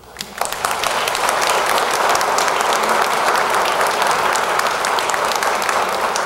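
Audience applauding: many hands clapping together, starting about half a second in and holding steady.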